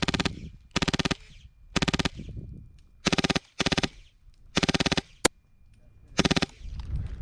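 HPA-powered airsoft light machine gun firing short bursts of rapid shots, about seven bursts roughly a second apart, with one single shot about five seconds in.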